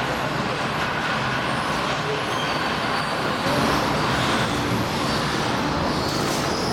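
Steady rumble of a funicular on the move: the haul cable running over the track pulleys and the car rolling down the tunnel toward the station, a little louder about halfway through.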